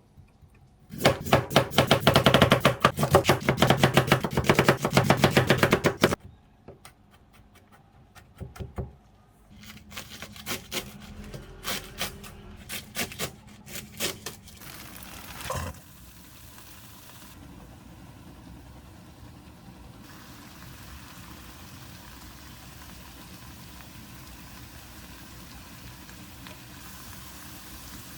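Knife chopping rapidly on a cutting board for about five seconds, then a few scattered knocks, and then a steady low hum.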